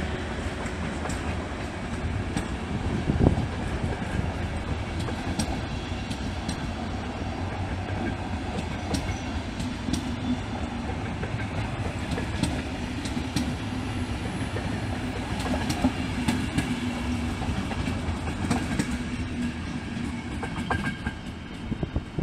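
Passenger coaches of a departing train rolling past, with steady wheel-on-rail noise and sharp clicks as the wheels cross rail joints and points, including one loud knock about three seconds in. A low hum runs through the middle part.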